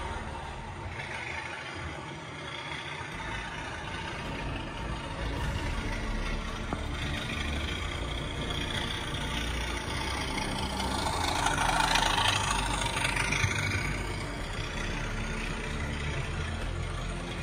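Engine sound of an English Electric Class 37 diesel locomotive running steadily, growing louder for a couple of seconds about twelve seconds in.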